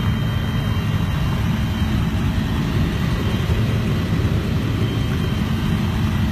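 Helicopter engine and rotor noise heard from inside the cabin: a steady low rumble with a few faint steady tones above it.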